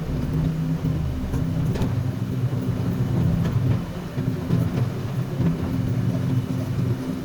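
Komatsu PC200 excavator's diesel engine running steadily, with a few short knocks.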